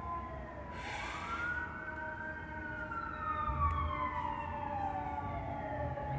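Emergency vehicle siren sounding a slow wail: the pitch climbs to a peak about two seconds in, sinks slowly over the next four seconds, and starts to climb again near the end.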